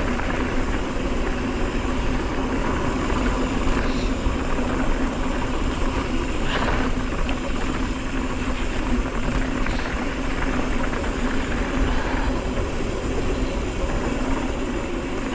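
Mountain bike rolling fast downhill on a dirt fire road: steady wind rush on the microphone and tyre rumble, with a few brief rattles.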